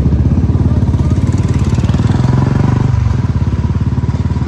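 Motorcycle engine running close by, a loud steady rapid throb of firing pulses, with a small shift in its note about two to three seconds in.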